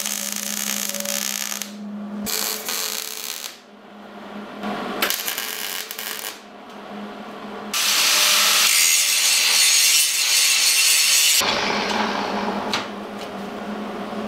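Wire-feed welder crackling in three short bursts as beads are laid on steel tubing, then an angle grinder grinding the welded steel, the loudest part, from about 8 to 11.5 seconds in. A steady hum follows near the end.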